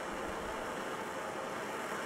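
Handheld gas torch burning with a steady hiss.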